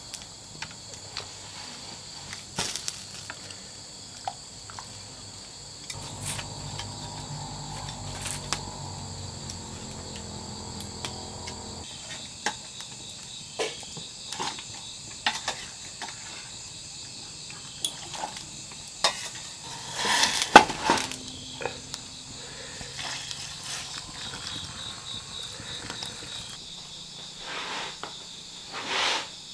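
Steady chorus of crickets, with scattered clinks and knocks of a utensil against a cooking pot; the loudest cluster of knocks comes about twenty seconds in.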